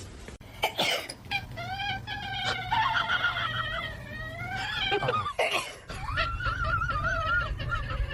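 A pet animal giving long, drawn-out, wavering cries, after a couple of sharp knocks about half a second in.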